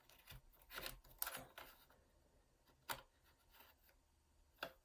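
Faint plastic scraping and a few short, sharp clicks: a plastic guitar pick prying along the seam of a laptop's clipped-on plastic bottom panel, its snap clips clicking as they give.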